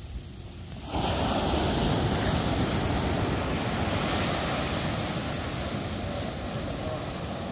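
Ocean surf breaking on the beach: a sudden rush of wave noise about a second in, which slowly eases off.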